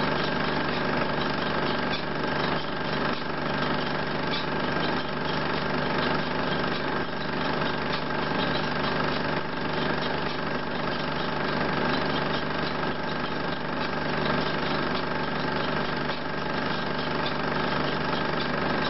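16 mm film projector running: a steady mechanical whir with a fast, even clatter of the film-advance mechanism.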